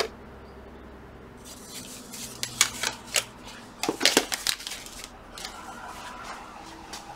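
Thin laser-cut wooden sheets and plastic-wrapped bundles of wooden strips being handled in a cardboard kit box: a run of light clicks, taps and rustles from about one and a half to four and a half seconds in, then softer rustling.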